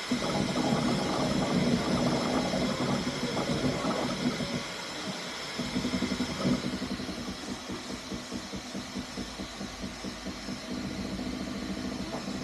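Bambu Lab A1 3D printer running a print: stepper motors whining with several steady tones over a fluttering hum, easing somewhat about two-thirds of the way through.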